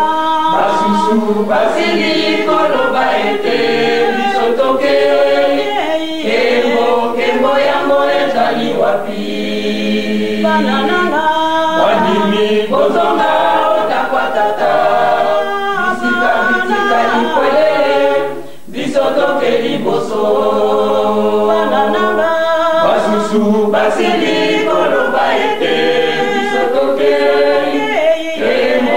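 A church choir singing a hymn a cappella, many voices together, on an old cassette recording with a dull, muffled top end. The singing breaks briefly about two-thirds of the way through, then carries on.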